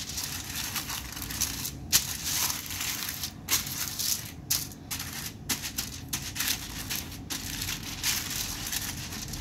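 Aluminum foil lining a baking pan crinkling and rustling as oil is rubbed over it, with short irregular pauses in the rubbing.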